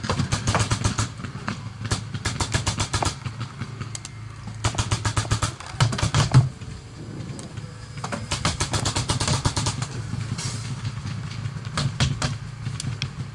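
Paintball markers firing in rapid strings of shots, about ten a second, in five bursts of one to two seconds each, over a low steady hum.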